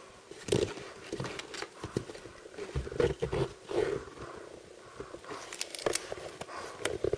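Close-up handling noises of blind-box packaging and small toys: irregular taps, clicks and rustles, some in quick clusters.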